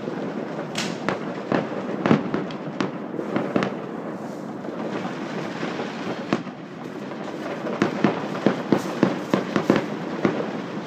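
Fireworks exploding: many sharp bangs over a continuous rumble and crackle. The bangs come in a quicker run near the end.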